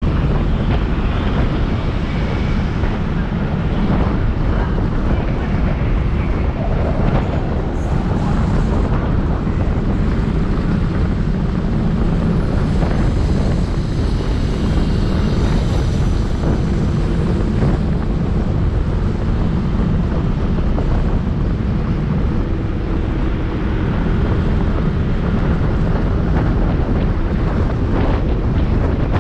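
Steady wind rush on the microphone of a Yamaha Aerox scooter riding along a road, with the scooter's engine and tyre noise running beneath it.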